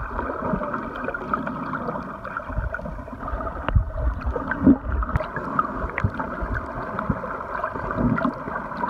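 Muffled underwater sound picked up by a camera submerged while snorkeling: gurgling and bubbling over a steady hum, with scattered knocks and a low thump about halfway through.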